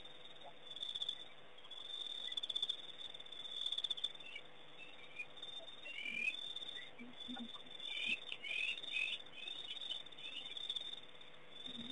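Night insects, crickets, chirring in pulsing trills, with a scatter of short, quick chirping calls in the middle stretch. A faint steady hum runs underneath.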